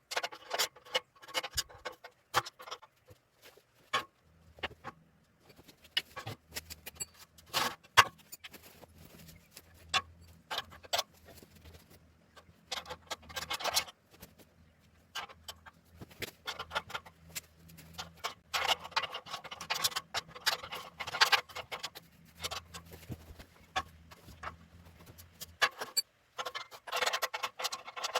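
Sped-up workshop work: rapid, irregular clicks and clinks of hand tools, coming in quick clusters. A faint low hum runs through the middle and stops near the end.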